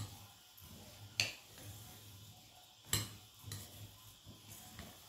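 Metal spoon stirring spiced, washed rice in a glass bowl, with a few light clinks of the spoon against the glass.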